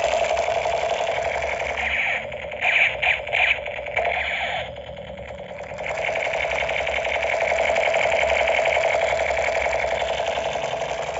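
Battery-operated toy AK-47 rifle giving its electronic firing sound: a rapid buzzing rattle. About two seconds in it breaks into a few short bursts, dips briefly near the middle, and then runs steady again.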